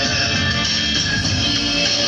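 Loud recorded music playing over loudspeakers for a group dance, a steady, dense mix with no break.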